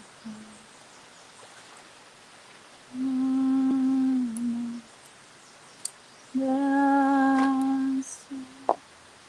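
A voice humming long, steady held notes: one of nearly two seconds about three seconds in, dipping slightly in pitch at its end, another of similar length a little after six seconds, then a brief short note.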